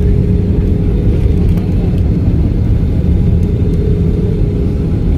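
Airliner landing, a steady low rumble with a faint steady hum above it.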